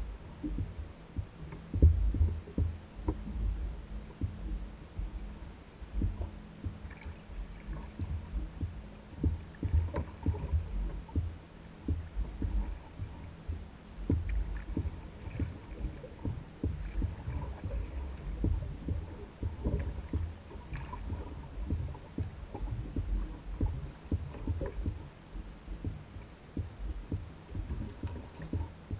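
Water slapping and knocking against the hull of an Old Town Guide 119 canoe bobbing on a lake: a run of irregular low thumps with an occasional sharper knock.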